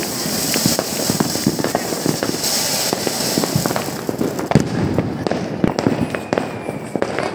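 Ground fountain firework (flowerpot) hissing and crackling as it sprays sparks, with many sharp pops mixed in. The hiss dies down about four and a half seconds in, while scattered firecracker cracks continue, a few of them louder.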